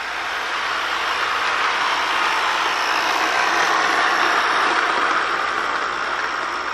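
Toy electric train running past on its track: a steady rolling rumble and whir that grows louder as the train comes close, then eases slightly near the end as the cars go by.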